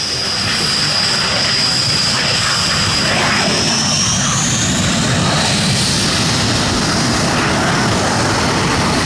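Jet aircraft engines running: a steady, high-pitched turbine whine over a broad rush, the whine rising in pitch about four to five seconds in.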